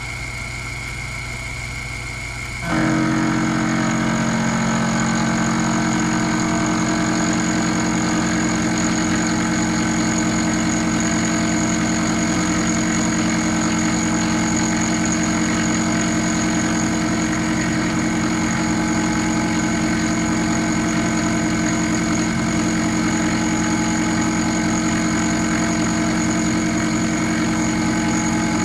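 Sherline CNC mill running. About three seconds in it turns much louder as the cut in 1018 steel begins, a steady machine whine made of several held tones that stays even for the rest of the cut.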